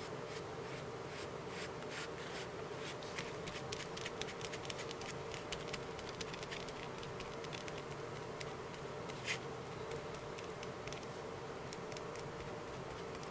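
Foam sponge dauber dabbing and brushing wet Mod Podge over a napkin on paper: faint soft ticks and scratches, one a little louder about nine seconds in, over a steady buzzing hum.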